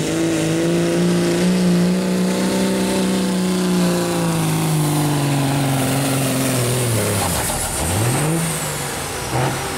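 Second-generation Dodge Ram's Cummins diesel straight-six at full throttle, pulling a weight sled. Its pitch holds steady, then sags over a couple of seconds as the sled's load builds, the engine bogging down about seven seconds in before a brief rise in revs.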